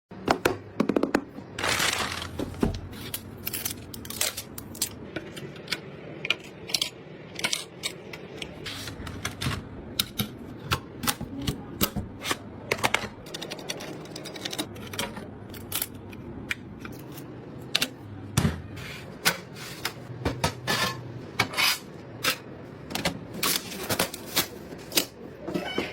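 Many irregular clicks and light taps of hard computer parts being handled and fitted together, several a second, over a low steady background.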